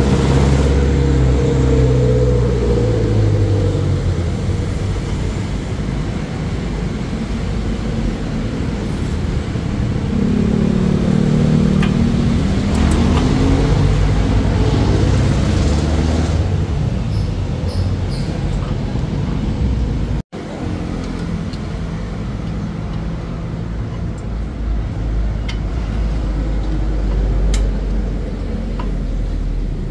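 Motor vehicle engine running steadily, its pitch gliding up and down near the start and again about ten to thirteen seconds in, with a few light clicks.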